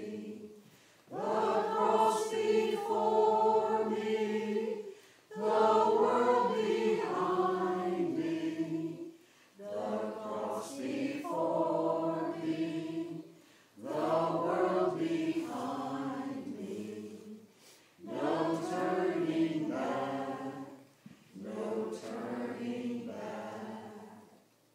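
Small church choir singing a cappella in six phrases of a few seconds each, with a short breath pause between phrases; the last phrase fades out near the end.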